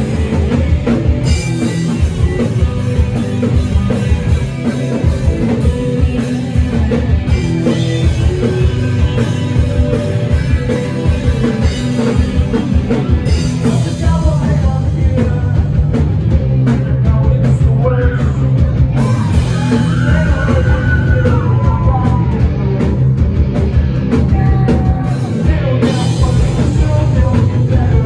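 Live rock band playing a song with loud electric guitars, bass and drums and a woman singing lead.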